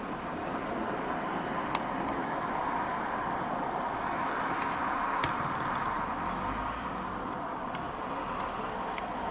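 Steady hum of distant city traffic, swelling slightly midway, with a few faint clicks, the sharpest about five seconds in.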